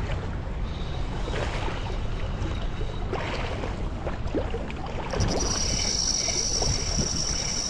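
Harbour water lapping and splashing at the shoreline, with wind on the microphone. About five seconds in, a steady high-pitched whine joins and holds on.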